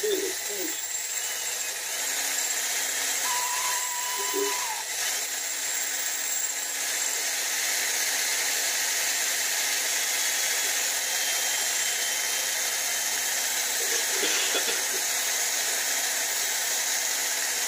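Cordless drill running steadily, its spinning bit or attachment working against a small metal part, then stopping near the end.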